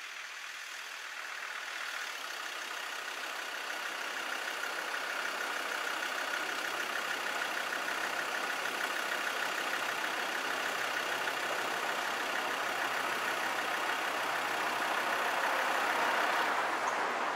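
A UK railway level crossing in operation, its warning alarm sounding as a steady warbling tone with a noise that builds gradually and peaks near the end.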